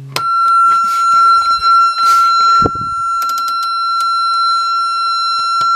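Sine-wave test tone through the 5-watt MOSFET amplifier and loudspeaker box. It jumps from a low hum to a steady high-pitched tone just after the start, with scattered clicks and a low thump around the middle. The strong overtones stacked above the tone show the amplifier driven into distortion.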